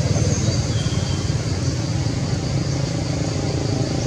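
Steady low rumbling noise with no clear pitch, with two short faint high tones in the first second.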